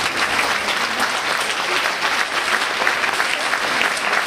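Large audience in grandstands applauding steadily, a dense patter of many hands clapping.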